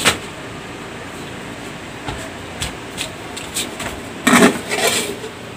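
Steady background hiss with a few light knocks and handling noises, and a louder clatter about four seconds in.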